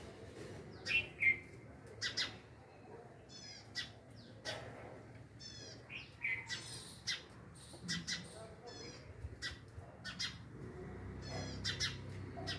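Birds calling in a garden: many short, sharp chirps and squawks at irregular intervals, with a few brief rapid trills in between.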